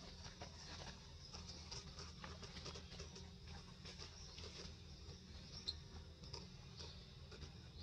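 Faint scratchy patter and small clicks as macaques shift, groom and handle a nursing baby, over a steady high hiss. One sharper click comes about two-thirds of the way in.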